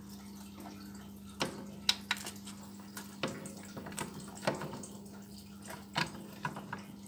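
Scattered small clicks and scrapes of a coaxial antenna cable plug being pushed and screwed onto a set-top box's antenna socket, over a steady low hum.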